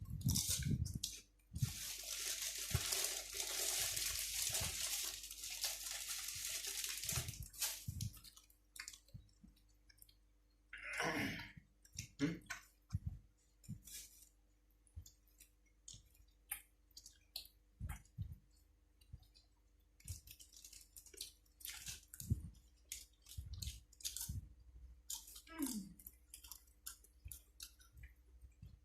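Close-up chewing and crunching of spicy grilled pork salad with raw cabbage and long beans, in short, irregular crunches. A few seconds of rustling hiss come near the start, and a brief voiced hum is heard twice.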